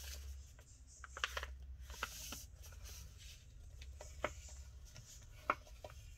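Cardstock being folded and creased along its score lines by hand: scattered light taps and rubbing of paper, over a faint steady low hum.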